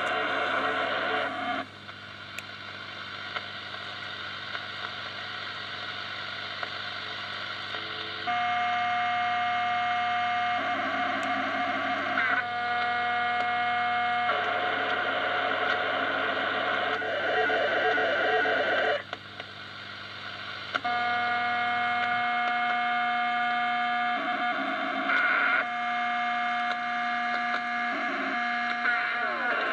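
Unidentified signal received on the 10 meter amateur band through a Kenwood TS-140 HF transceiver: stretches of several steady tones sounding together alternate with warbling, noisy stretches, and the level drops twice, about two seconds in and around nineteen seconds in. It sounds like some digital mode, though which one is unknown.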